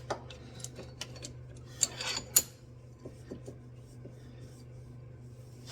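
Metal clinks and knocks from a homemade slide hammer, vise grips with a welded-on nut, being worked against a stuck CV axle, with two sharp metal strikes about two seconds in.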